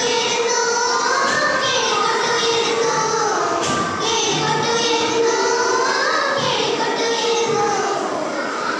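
A group of young girls singing a song together as a small choir, with held notes that glide up and down.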